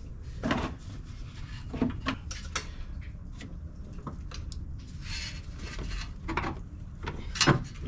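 Metal tools and car parts being handled: a few separate clinks and knocks, the loudest near the end, over a steady low hum.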